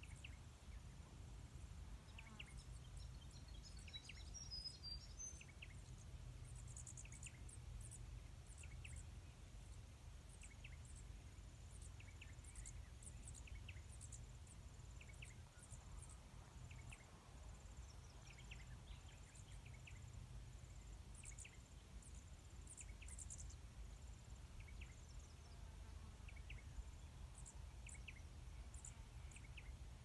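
Faint, scattered high chirps and twitters of small birds in the trees, over a low steady rumble.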